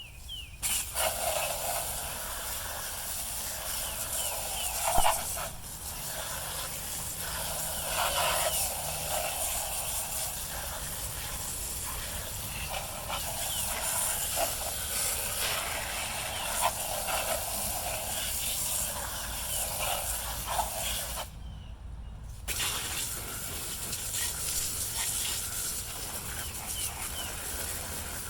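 High-pressure spray nozzle hissing steadily while cleaning a chainsaw, with crackly spatter over the hiss. It cuts out for about a second near the end, then starts again.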